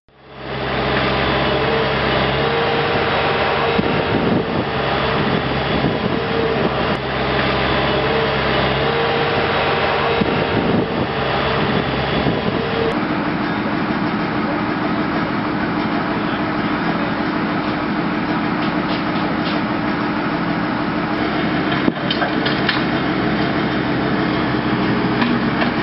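An engine idling steadily, with a constant hum. About halfway through the hum changes to a different steady engine tone.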